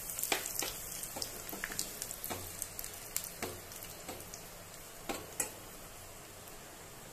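Dried red chillies frying in a small pan of hot oil with mustard seeds, cumin and urad dal: a steady sizzle with scattered sharp pops, the pops thinning out after about three seconds and the sizzle easing slightly. This is the tempering for a chutney.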